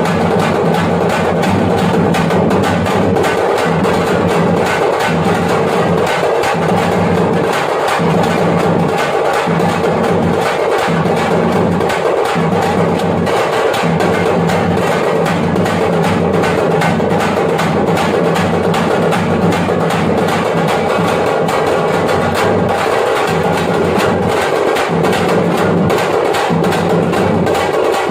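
Thappattam (parai) frame drums beaten with sticks in a fast, continuous, driving rhythm of sharp strikes.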